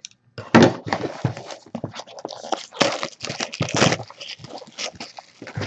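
Shrink-wrap plastic crinkling and the cardboard of a Topps Finest trading-card box scraping and knocking as the sealed box is handled and unwrapped, in irregular rustles and clicks.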